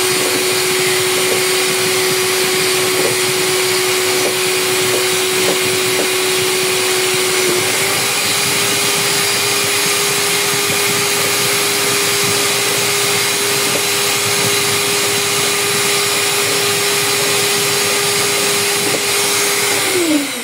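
Mondial Prática 400 W electric stand mixer running steadily, its beaters whipping eggs in the bowl, with a constant motor hum. Near the end it is switched off and the motor winds down with a falling pitch.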